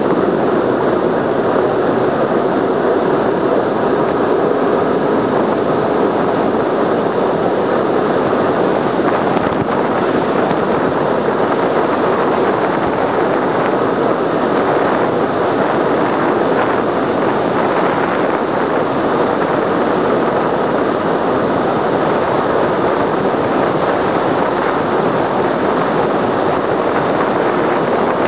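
Steady rush of wind on the microphone and bicycle tyre noise on asphalt during a fast downhill ride at around 50 km/h.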